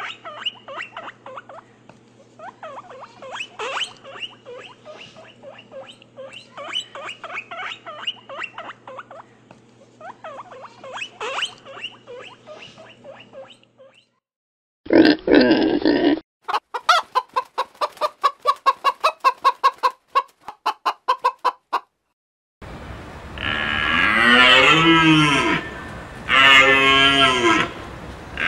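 A string of different animal calls: for about the first half, a long run of high, squeaky chirps; then a short loud call and a rapid series of short pulses, about four a second; and near the end a cow mooing twice.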